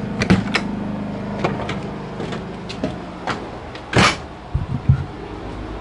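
A series of clicks and knocks, then a louder clatter about four seconds in and a few low thumps: a camper door being opened and handled as someone steps inside.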